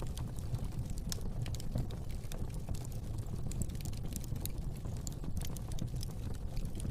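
Fire burning in a fireplace, crackling with small, irregular pops over a steady low rumble.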